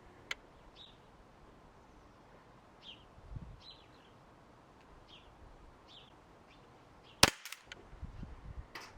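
A Swiss Arms 1911 CO2 air pistol firing one sharp shot about seven seconds in, with a small click near the start and a fainter crack near the end. Faint short bird chirps are heard throughout.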